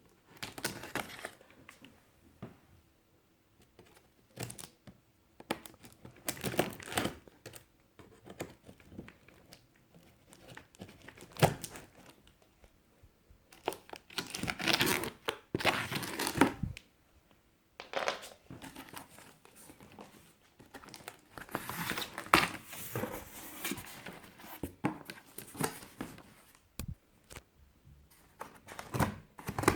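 Packaging being opened by hand: irregular rustling, crinkling and tearing of cardboard and wrapping, with a few sharp knocks.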